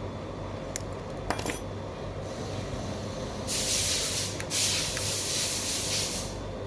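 A hiss of air or spray running for about three seconds, broken briefly partway, after a few light clinks of small metal tools at the bench. A steady low hum sits underneath.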